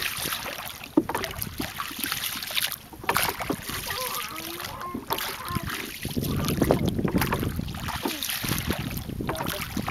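A hand paddle dipping and splashing through water as a small boat is paddled along, with wind buffeting the microphone.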